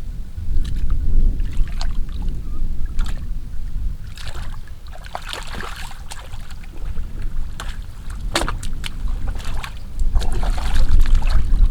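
Water sloshing and splashing in short irregular bursts, over a heavy low rumble of wind buffeting the microphone.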